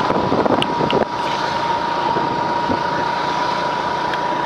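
A motor scooter running along a road, with wind rushing over the microphone and a steady whine.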